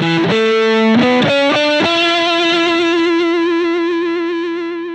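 Short logo jingle on distorted electric guitar: a quick run of notes, then one long held note with vibrato that slowly fades.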